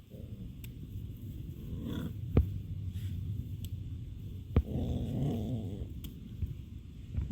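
American Pit Bull Terrier puppies growling low and rumbly, with two sharp knocks in between.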